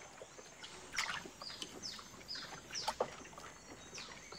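Tropical forest ambience: a bird calling a rapid series of short falling chirps, roughly two a second, with a couple of sharp clicks.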